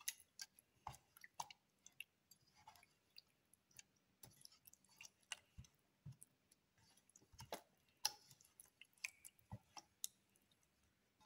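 Faint, irregular wet squishing and clicking as a hand mixes fish pieces through a spice paste in a steel bowl, with small taps of fingers and fish against the bowl.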